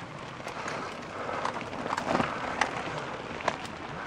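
Mountain bike tyres crunching and crackling over loose gravel and stones as riders pass close by, with scattered sharp clicks and knocks of stones and bike parts.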